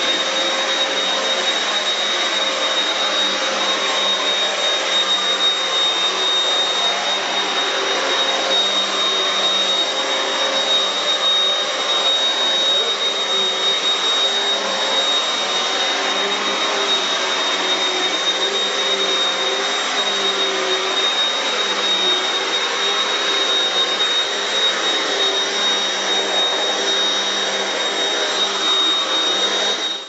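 Vax U87 (Power 7) 2200-watt bagless upright vacuum cleaner running steadily while vacuuming carpet: a constant rush of air and motor with a high steady whine on top. It is switched off right at the end.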